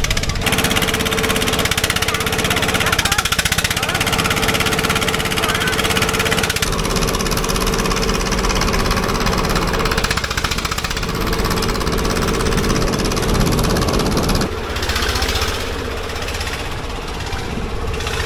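Diesel engine running with a steady, rapid knocking beat and a steady hum underneath. It drops a little in level about fourteen seconds in.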